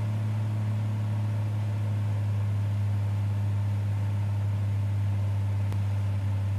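Steady drone of a 1972 Piper Cherokee 235's six-cylinder Lycoming engine and propeller in flight, heard from inside the cabin.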